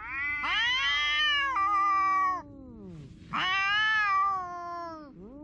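Two domestic cats yowling at each other face to face, a threat standoff on the edge of a fight. Two long caterwauls with a pause between them, the first with both cats' voices overlapping, each call sliding down in pitch at its end.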